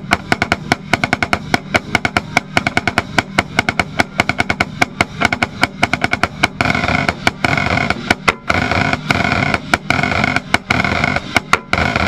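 Marching snare drum played close up, a fast run of sharp strikes and rolls. About six and a half seconds in, the marching band's horns come in with held chords under the drumming.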